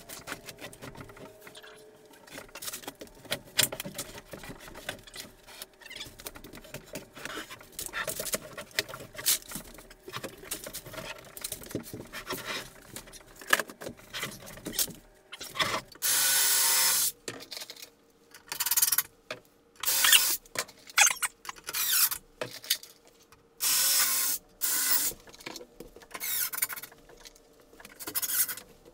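Scraping and knocking as a shower wall panel is handled and worked into place. From about halfway through, a cordless drill runs in a series of short bursts of about a second each, driving screws.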